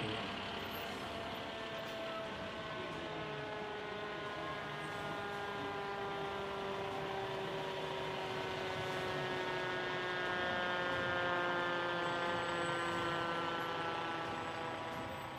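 A siren winding down: one long pitched tone that slowly falls in pitch throughout.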